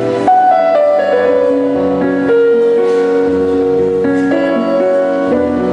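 Background music led by piano or keyboard, slow held notes changing every half second or so.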